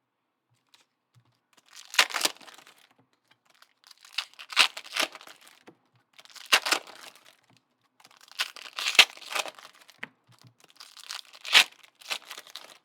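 Plastic card-pack wrappers and trading cards crinkling as they are handled, in about five short rustling bursts roughly two seconds apart.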